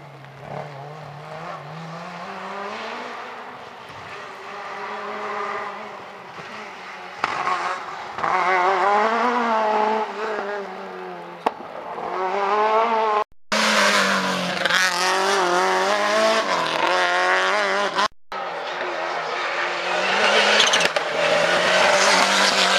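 Rally car engines revving hard, their pitch climbing and dropping over and over with gear changes and lifts off the throttle. The sound is quieter for the first several seconds, then loud, and it cuts off abruptly twice as the footage jumps from one car to another.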